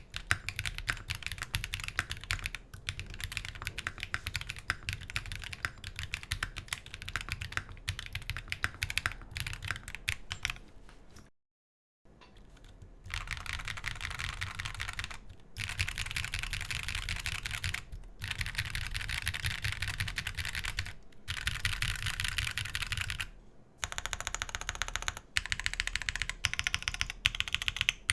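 Continuous fast typing on a custom gasket-mounted mechanical keyboard (Ark68 R2) with an aluminium plate, JWK 02 switches and Key Kobo keycaps: a dense run of key clicks, broken by a brief dead silence a little past a third of the way in before the typing resumes.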